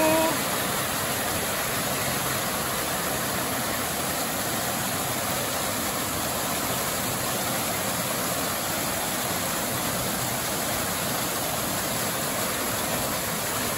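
Steady rush of water pouring from a mushroom-shaped pool fountain, its curtain of water splashing into the pool below.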